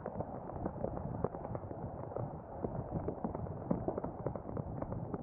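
Storm rain: a dense, irregular patter of drop ticks over a steady rushing noise.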